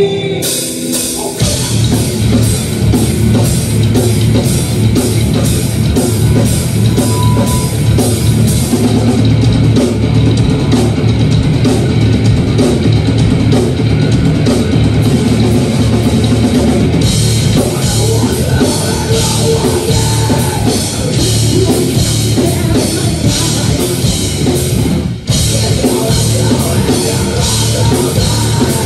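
Live rock band playing: electric guitars, bass guitar and a drum kit with busy cymbals. The full band comes in about a second in after a brief gap, and cuts out for an instant near the end before carrying on.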